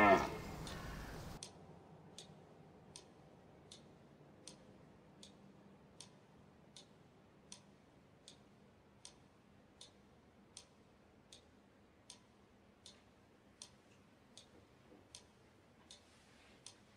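Faint, evenly spaced ticking, a little faster than once a second, with music fading out at the start.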